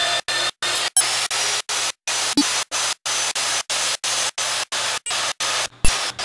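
AGP PMD3530 magnetic core drill running, its annular cutter cutting through steel plate with cutting oil. The sound is noisy with a steady hum and whine, broken by even drop-outs about three times a second, with two sharp clicks, about a second in and near the end.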